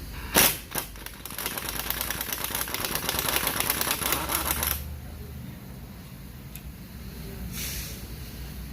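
Two sharp metal knocks, then about three and a half seconds of fast, dense clicking rattle that stops abruptly, as a wrench with an 18 mm swivel socket works one of the hub assembly's mounting bolts loose.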